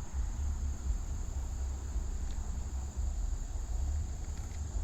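Steady high-pitched insect chirring, like crickets, over a low steady rumble on the microphone.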